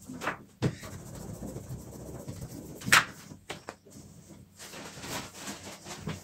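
Long thin rolling pin (oklava) rolling and unrolling stacked baklava dough sheets on a tabletop: a soft rolling, rustling sound with several knocks of the pin against the table, the sharpest about three seconds in.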